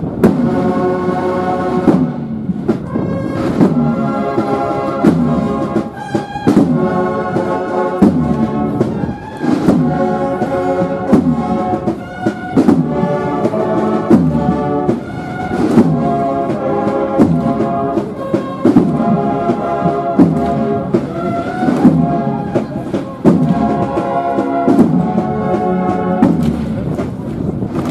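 Brass band playing a processional march, with horns holding chords over regular drum beats.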